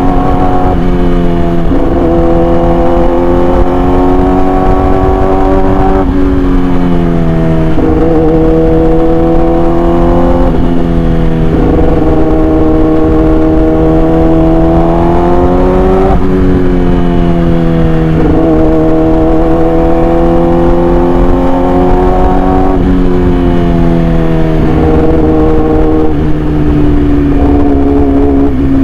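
Yamaha R6 inline-four sport bike engine through an SC-Project aftermarket exhaust, running loud under way. Its note climbs slowly and drops sharply several times, about every two to five seconds.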